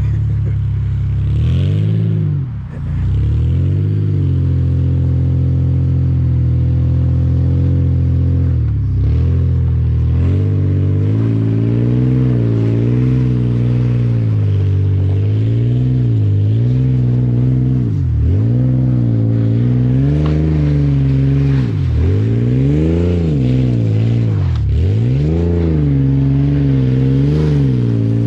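Toyota Tacoma pickup's engine revving hard as it drifts in circles on snow, the pitch rising and falling again and again as the throttle is worked, with brief sharp drops every few seconds.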